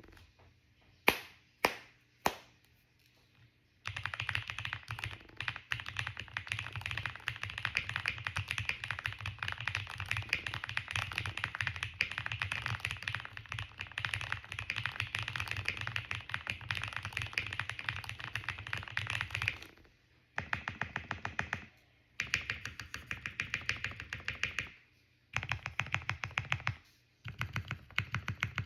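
Mechanical keyboard with Gateron Ink Black linear switches being typed on. Three single keystrokes come first, then fast continuous typing for about fifteen seconds, then several shorter bursts of typing with brief pauses between them.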